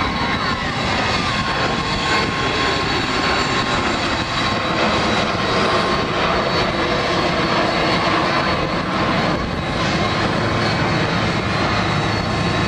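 Four jet engines of a Boeing 747 freighter running as it taxis slowly along the runway: a loud, steady jet roar with thin high whines held over it.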